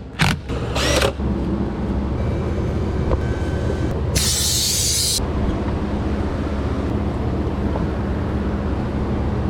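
Chevrolet Silverado truck engine idling steadily with a low, even hum after its water pump, belts and hoses were replaced. A short loud hiss cuts in for about a second near the middle.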